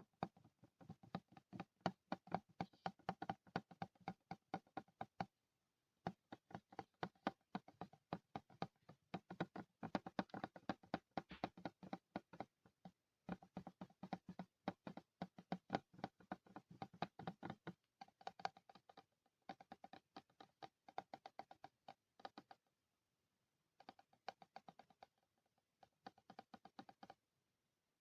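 Fingernails tapping rapidly on a glass mirror, close to the microphone, in runs of quick clicky taps broken by short pauses every few seconds.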